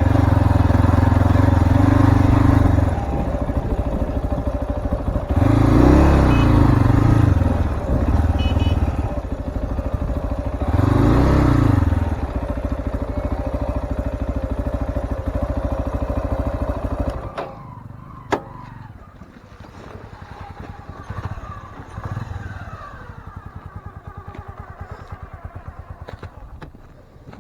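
Single-cylinder RX3 Cyclone motorcycle engine running under way, revving up and back down twice. About two-thirds of the way through the engine sound drops away suddenly, leaving fainter scattered sounds and a sharp click.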